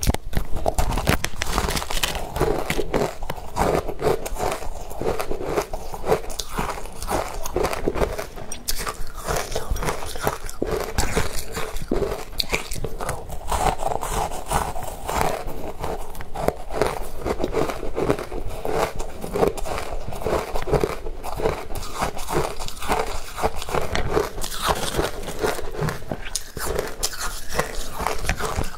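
A person biting into and chewing matcha-dusted shaved ice, with dense, continuous crunching and crackling throughout.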